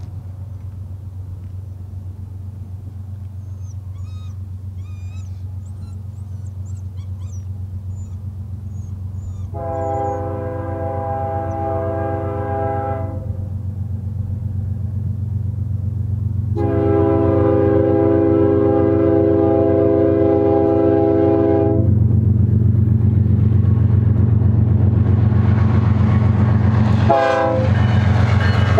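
Approaching BNSF GE ES44DC diesel locomotives, their engines drumming low and growing steadily louder, sound a chord horn: two long blasts, then a very short one near the end, as the grade-crossing signal. The engine and wheel noise swells loudly as the locomotives come alongside near the end.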